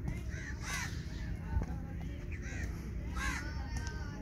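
Crows cawing repeatedly in short harsh calls over a low outdoor background rumble, with one sharp knock about a second and a half in.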